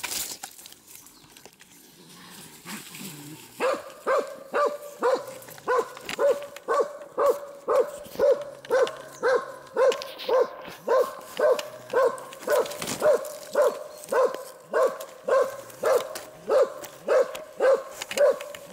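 Rustling of dry fallen leaves. Then, about four seconds in, a hunting dog starts barking in a steady, even rhythm of nearly three barks a second, baying at a wild boar standing in the undergrowth.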